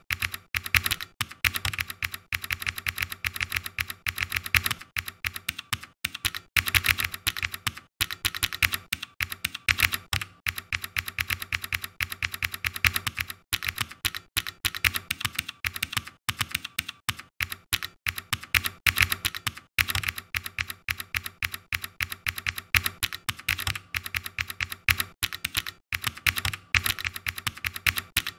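Typing on a computer keyboard: rapid runs of keystrokes with brief pauses between them.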